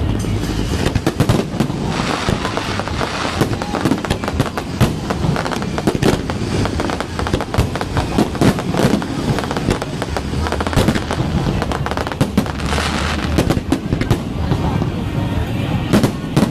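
Aerial fireworks going off in a dense, continuous run of bangs and crackles.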